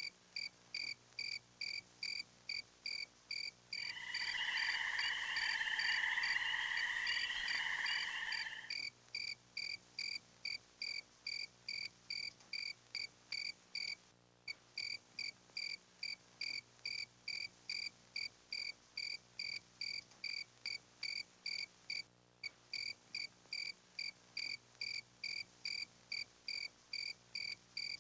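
Cricket chirping at night in a steady rhythm, about two high chirps a second. From about four to nine seconds in, a louder wavering call sounds over it.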